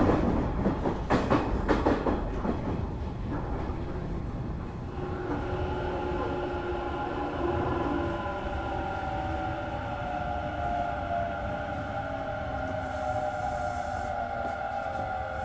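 Hanshin 1000 series electric train heard from inside the car: wheels clatter over the rail for the first couple of seconds. Then a steady motor whine in several tones sets in, and after a few seconds it slowly falls in pitch as the train slows.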